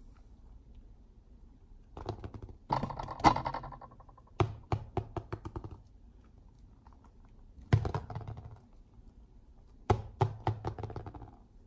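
PU foam balls knocking against one another and bouncing and rolling on a marble tabletop: four bursts of quick light knocks, a couple of seconds apart.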